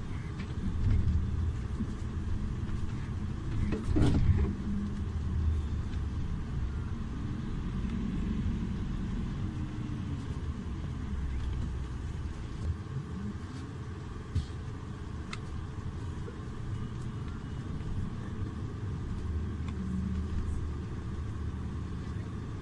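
Iveco Urbanway 12 Hybrid city bus running with a steady low rumble, its drive giving a few rising and falling tones. A sharp knock comes about four seconds in.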